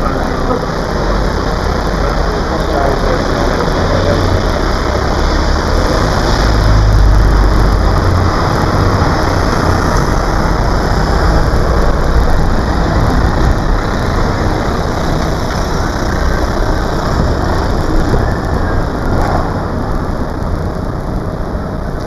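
Loud, steady outdoor noise: a heavy low rumble with hiss, swelling a few seconds in and easing off after.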